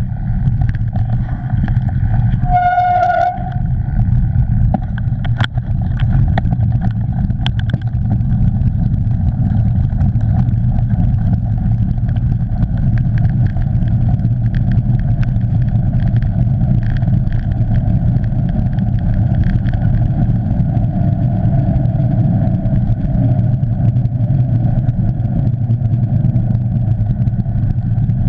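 Mountain bike rolling fast over a muddy, leaf-covered forest trail, picked up by a bike-mounted action camera: a steady low rumble of tyre and wind noise with scattered clicks and rattles over bumps, and a brief squeal about three seconds in.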